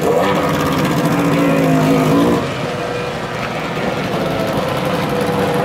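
Two-stroke racing outboard motor on a small hydroplane running, its pitch wavering up and down. About two and a half seconds in it drops to a quieter, steadier note.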